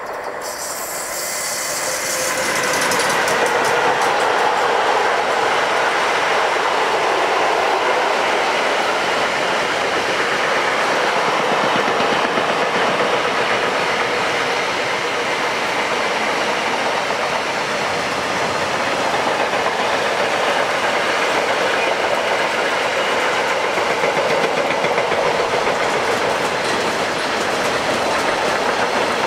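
A freight train of empty double-deck car-transporter wagons, hauled by an electric locomotive, passing close by: steel wheels running on the rails. It grows louder over the first few seconds as the locomotive approaches, then holds a steady, loud rolling noise as the wagons go by.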